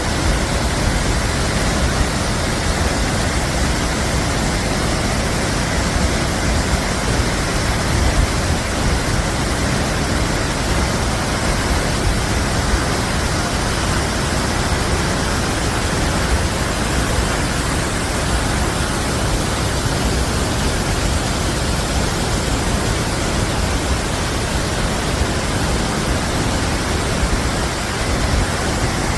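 Tegenungan Waterfall's falling water rushing in a loud, steady, unbroken wash of noise.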